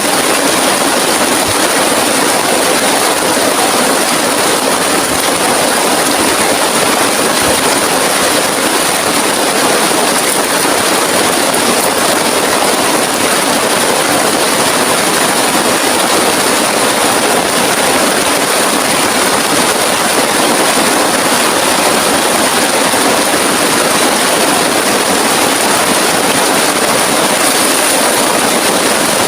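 Heavy rain falling steadily, a dense even hiss with no let-up, with a steady high-pitched whine running along on top.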